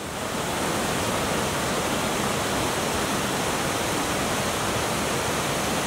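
Small waterfall pouring off a rock ledge: a steady, full rush of falling water that swells in at the start.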